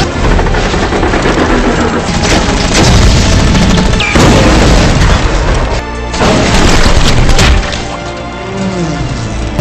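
Movie air-raid sound mix: a run of heavy explosions and booms, one after another, with music underneath. The blasts ease off for the last couple of seconds.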